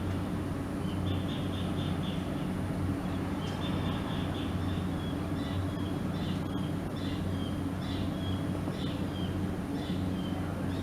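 A small bird calling in short, high, quick runs of notes, then in evenly spaced chirps with a brief falling slur, over a steady low urban hum.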